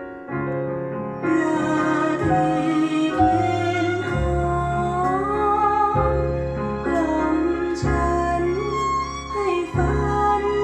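A recorded slow soul ballad played over hi-fi loudspeakers: a male voice sings a gliding melody over piano and a deep bass line.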